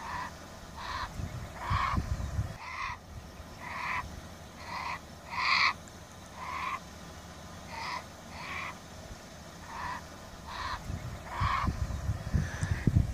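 Grizzly bear cubs bawling: a steady series of short, high, whining cries about one a second, the distress calls of cubs cut off from their mother by a fence. Low rumbles come about two seconds in and again near the end.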